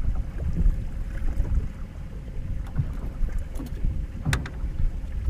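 Low, gusty rumble of wind buffeting the microphone on an open fishing boat, with a sharp click about four seconds in.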